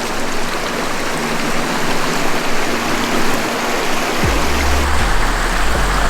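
Small mountain creek rushing and splashing steadily over rocks, a constant hiss of running water.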